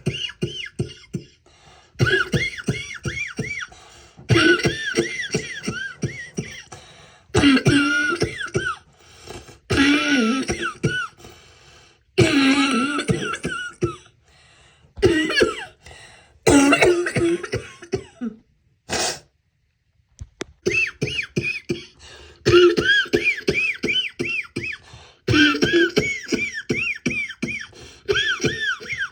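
A woman coughing in repeated fits, each a quick run of several voiced, hacking coughs, with short pauses between fits and one longer break about two-thirds of the way through.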